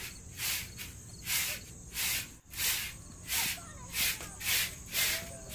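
Broom sweeping a floor: a steady run of about nine short swishing strokes, roughly one every two-thirds of a second.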